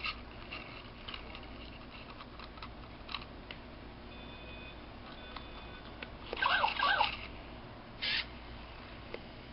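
Zoomer Dino robot dinosaur toy giving a short, warbling electronic growl about six seconds in, after a few faint beeps.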